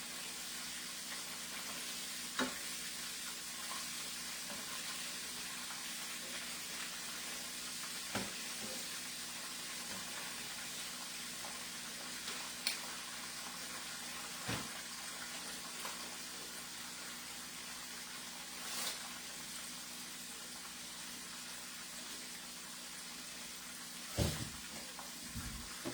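Chicken pieces frying in hot oil: a steady sizzle, with a few short sharp clicks now and then.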